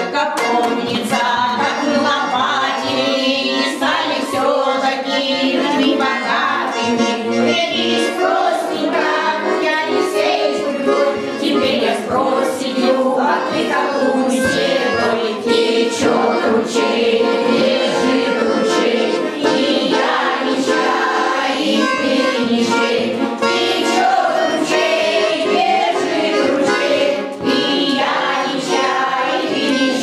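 A women's folk choir singing to button accordion accompaniment.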